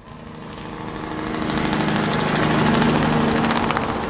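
Tractor engine running steadily, growing louder over the first two seconds or so.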